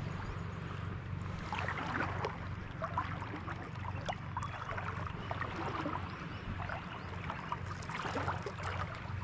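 Small waves lapping and trickling over a shallow coral flat, in many small splashes and gurgles, over a steady low rumble.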